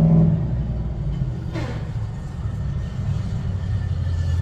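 Steady low mechanical rumble, with a brief scrape or rustle about one and a half seconds in.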